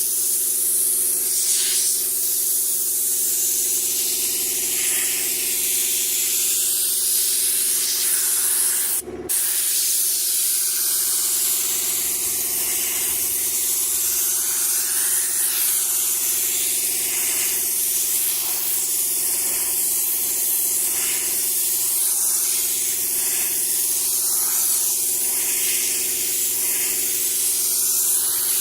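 Paint spray gun hissing steadily as it sprays a wood-grain paint finish, over a steady low hum. The sound cuts out briefly about nine seconds in.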